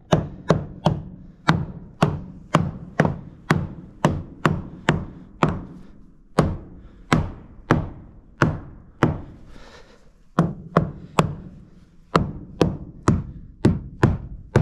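Hammer tapping staples flush into a wooden screen frame: a quick run of sharp wooden knocks, about two or three a second, with a short pause about two-thirds of the way through. Parts of the frame are rotted, and the ranger calls the dull knock 'the rotten sound'.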